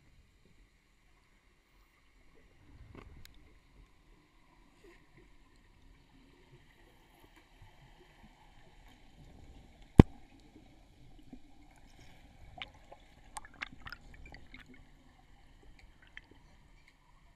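Muffled underwater sound of a freediver moving, heard through a GoPro's waterproof housing: low water movement with scattered clicks and knocks, and one sharp knock about ten seconds in.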